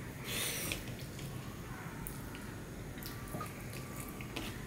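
Soft wet eating sounds: chewing a mouthful of rice and sea fish curry eaten by hand, with small squishes and clicks as fingers mix rice and curry on a steel plate.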